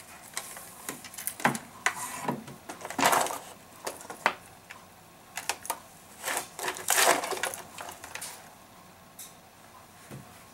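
Irregular rustling, clicks and knocks of things being handled close to the microphone, busiest in the first eight seconds and then dying down.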